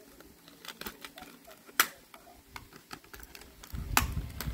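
Scissors snipping the clear plastic ties that hold a toy cat in its cardboard packaging: scattered sharp clicks, the loudest about two seconds in and two more near the end, with rustling and rumble of the box being handled in the last second.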